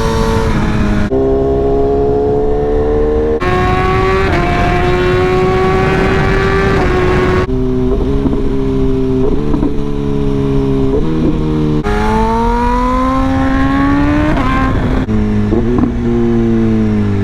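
BMW S1000RR's inline-four engine revving hard under acceleration, its pitch climbing through each gear and dropping abruptly several times at the shifts, then falling away near the end as the bike slows.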